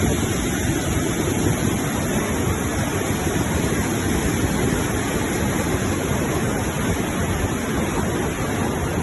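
Steady rush of white water pouring over a river waterfall and rapids, even and unbroken.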